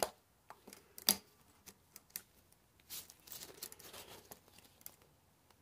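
Faint metal clicks and scrapes of pliers working a rusted screw loose in the cast actuator housing, with a sharper click about a second in and a rustling scrape around the middle.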